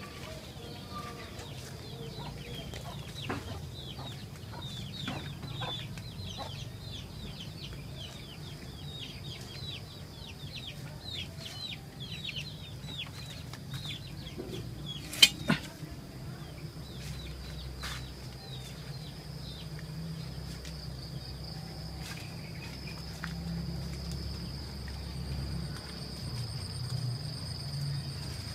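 Chickens calling, with a dense run of short, high, falling peeps through the first half, over a steady high insect whine. A single sharp knock comes about fifteen seconds in.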